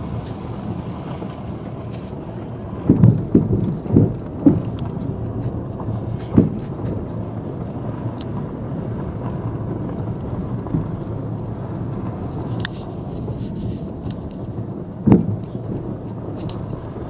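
Steady low rumble of a car's engine and tyres heard from inside the cabin while driving slowly along a rough, patched asphalt street. Short thumps come in a cluster about three to four and a half seconds in, once more about six seconds in, and a louder one near the end.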